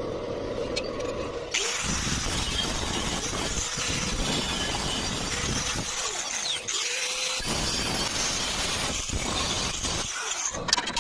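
Angle grinder cutting metal: the motor whines steadily at first, then from about a second and a half in the disc bites into the steel with a loud, harsh hiss that eases briefly a couple of times.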